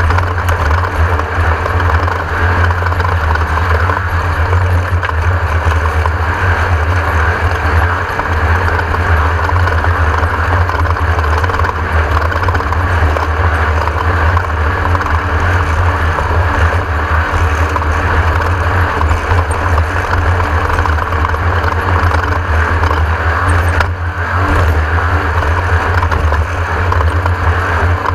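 Class 1600 off-road race car's air-cooled 1600 cc Volkswagen engine running steadily under way: a loud, constant low drone with rushing noise over it.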